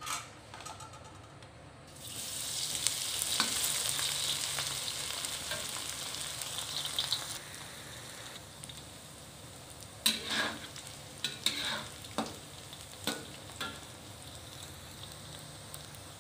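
Diced tempeh hitting hot oil in a wok, with a sudden loud sizzle about two seconds in that eases after a few seconds into steadier frying. In the second half a metal spatula clinks and scrapes against the wok several times as the tempeh is stirred.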